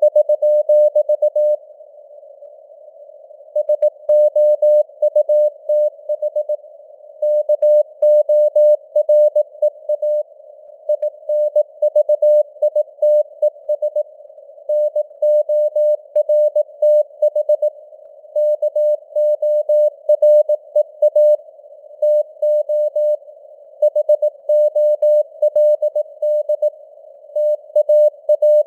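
Morse code (CW) sent at 18 words per minute as a single tone near 600 Hz keyed on and off in dots and dashes, with short pauses between words. A narrow band of simulated radio hiss surrounds the tone, and the signal strength fades up and down (QSB).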